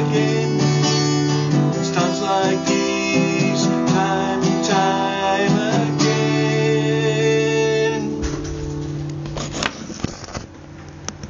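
A man singing and strumming an acoustic guitar, ending on a held chord that rings out and fades after about 8 seconds. A few handling knocks follow near the end.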